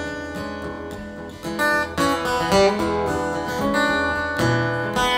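Acoustic guitar strummed, played solo, with a few strums standing out louder.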